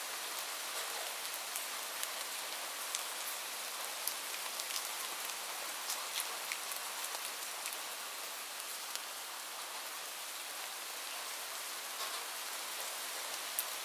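Light rain falling steadily: an even hiss with scattered sharp drop taps.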